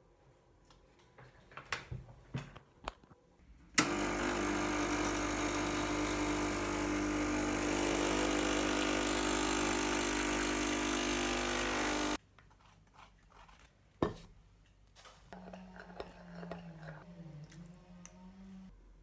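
Turmix Vapore espresso machine running for about eight seconds as it dispenses into a cup: a steady hum with hiss that starts and stops abruptly. Light clinks come before it, a sharp knock after it, and a spoon stirring in a ceramic cup near the end.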